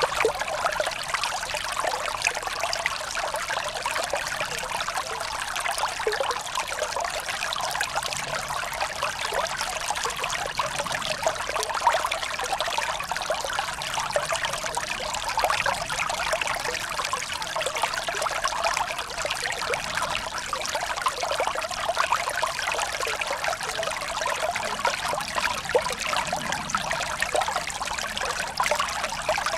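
Shallow stream rushing and gurgling over rocks, a steady babble of running water.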